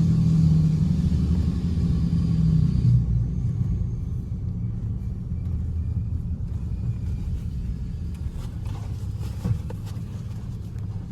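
A motor vehicle engine running with a low, steady rumble. It is loudest for about the first three seconds, then drops to a lower level and slowly fades, with a few faint clicks near the end.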